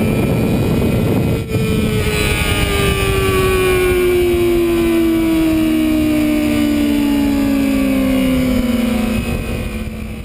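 High-revving sportbike engine heard from an onboard camera, with heavy rush of wind. After a brief drop in level about a second and a half in, the engine note falls slowly and steadily as the bike slows, then fades out near the end.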